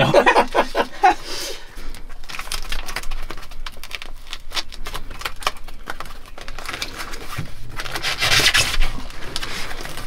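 Hands at work on a fridge's foam insulation: irregular rubbing, scraping and small clicks, with two brief hissing scrapes, about three seconds in and again near the end.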